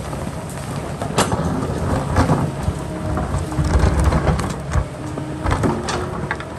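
Kobelco excavator's diesel engine running under load while rocks and stones scrape, clatter and tumble against the bucket, with a heavy rumble about four seconds in.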